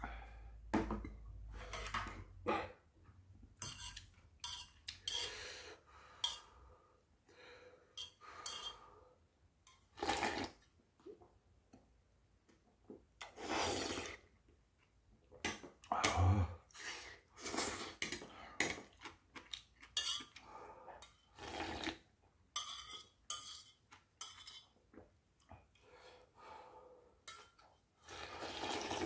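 Eating ramyeon from a stainless steel pot with metal chopsticks: repeated clinks and scrapes of the chopsticks on the metal pot, mixed with slurps of noodles and broth. Near the end the pot is lifted and the broth drunk straight from it.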